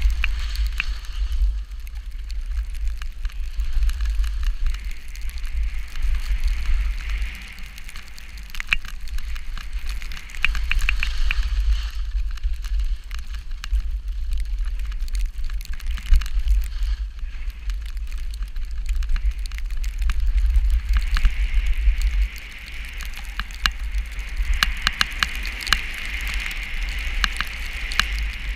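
Snowstorm wind buffeting the microphone with a heavy rumble, over a steady rushing hiss scattered with small crackling ticks; the hiss grows stronger in the last several seconds.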